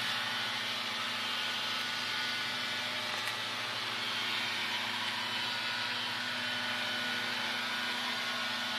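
Steady mechanical hum over a broad hiss, even and unchanging.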